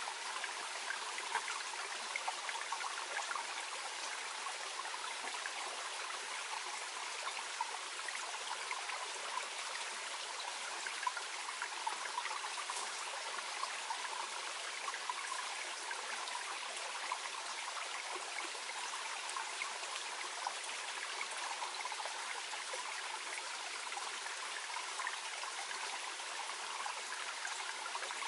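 Shallow mountain stream burbling steadily over stones, a gentle babbling with small splashes and trickles.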